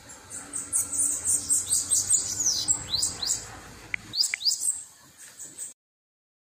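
Caged bananaquit (sibite) singing: a rapid run of high, thin notes that sweep downward, followed by a few separate calls. The sound cuts out abruptly near the end.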